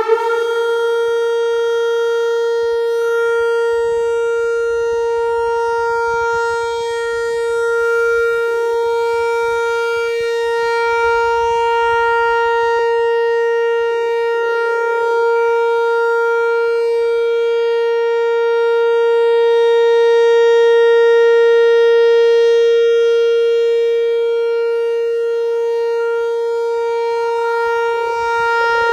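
Vortex R4 outdoor tornado siren sounding a steady tone at full speed during its commissioning test, having just wound up to pitch. The tone holds level throughout, its loudness swelling and easing slowly.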